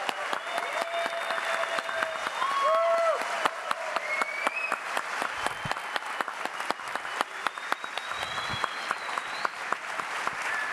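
Large audience applauding steadily, a dense patter of clapping, with scattered cheers and whistles rising and falling over it.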